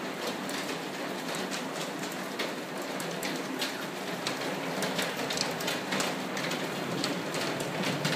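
Steady rain falling on a wet wooden deck and garden: a constant hiss with frequent sharp taps of single drops landing close by.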